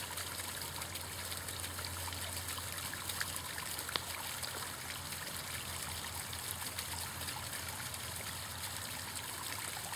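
Water trickling steadily down the faces of an artificial basalt column fountain into its pebble-covered basin. There is a single short click about four seconds in.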